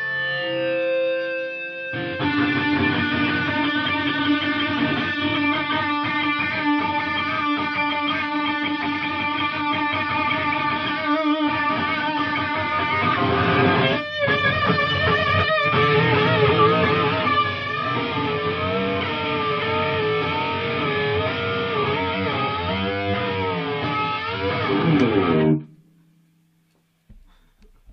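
Electric guitar: a few single held notes, then sustained chords from about two seconds in, with bent, wavering notes in the second half. It stops abruptly a couple of seconds before the end.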